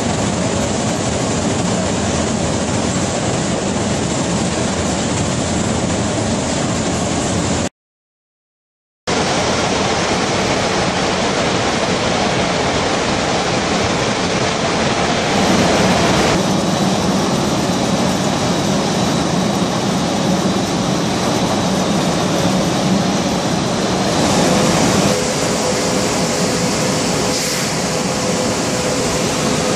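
Loud, steady running noise of an industrial belt conveyor and plant machinery at a mine transfer point, broken by a short cut to silence about eight seconds in. Near the end a steady hum joins in.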